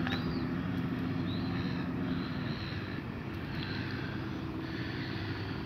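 A steady engine drone, with several short high chirps every second or so over it.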